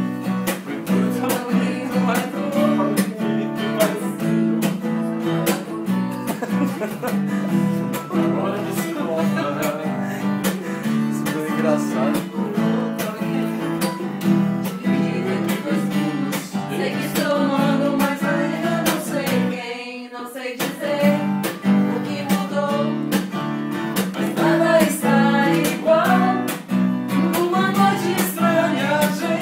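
Acoustic guitar strummed with a voice singing along, with a short break about 20 seconds in.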